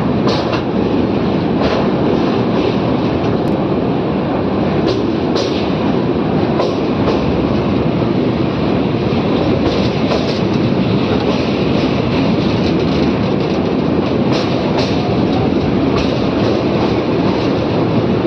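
Train running steadily, a continuous rumble with irregular sharp clacks of the wheels over rail joints.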